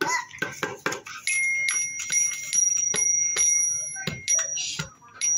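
A few quick knocks, then a single metal chime bar on a wooden stand struck with a mallet about two or three times a second, ringing one clear bell-like note that carries on between strikes.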